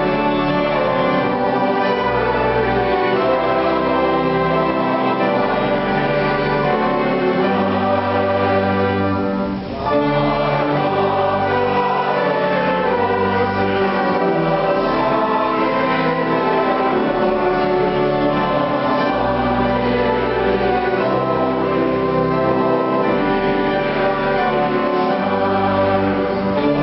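Church music: a choir singing in held chords over a sustained instrumental accompaniment, with a brief drop about nine seconds in.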